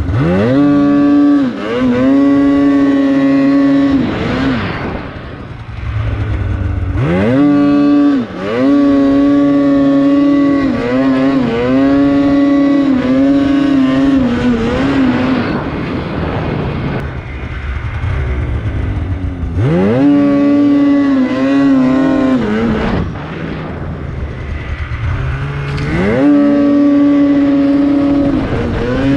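Polaris Khaos 850 snowmobile's two-stroke twin engine revved hard four times. Each time it sweeps quickly up to a high, steady scream, holds for several seconds, then drops back off the throttle: full-throttle launches that lift the skis into wheelies.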